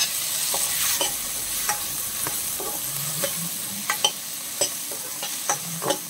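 Chopped tomatoes and onions sizzling in hot oil in a stainless steel pot, stirred with a spoon that scrapes and clicks against the pot's sides at irregular intervals over a steady hiss of frying.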